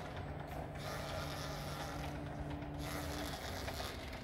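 STILL FM-X 12 electric reach truck driving slowly, its electric drive giving a steady low hum over a rough mechanical rattle; the hum stops about three seconds in.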